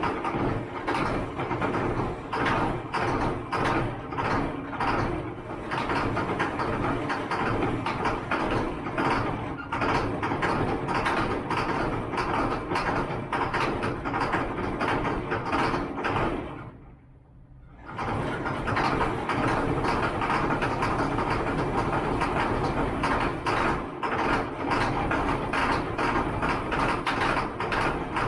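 A large diesel engine running steadily, with a rapid rattle through it. The sound drops away briefly about two-thirds of the way in, then returns.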